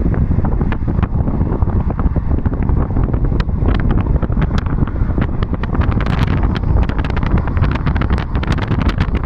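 Car in motion at road speed: a steady low rumble of road and engine noise with air rushing against the microphone. Many small crackling ticks run through it, thickest in the second half.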